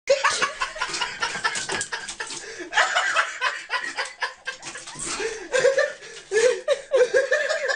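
A person laughing over and over, more strongly in the second half, over many short clicks and knocks.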